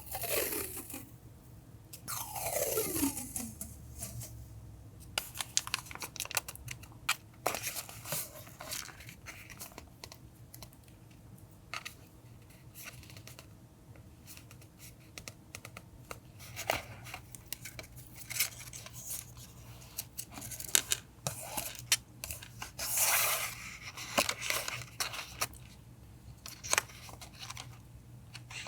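Paper and stationery being handled at a desk for collage journaling: rustling, crinkling and tearing with many small clicks and taps. Near the start there are two falling squeaks.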